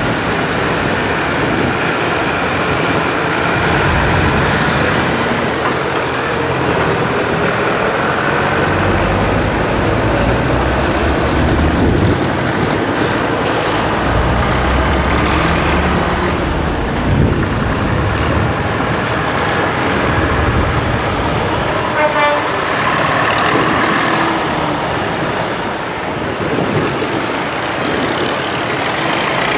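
Several tractor engines running as tractors pull away one after another, with horn toots.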